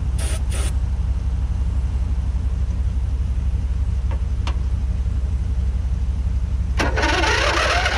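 Riding lawn mower's 21 HP engine running with a steady low rumble, fed from a spray can: two short aerosol hisses near the start. About seven seconds in the engine suddenly picks up and runs loud, its pitch rising as it revs.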